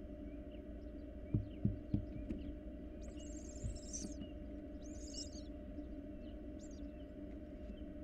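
Barn owl nestling moving about on a wooden nest-box floor. Three soft thumps come about a second in, then short rustling bursts as it flaps its wings, over a steady low hum.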